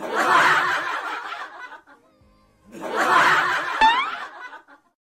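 Laughter in two bursts of about two seconds each, with a short rising whistle near the end of the second burst.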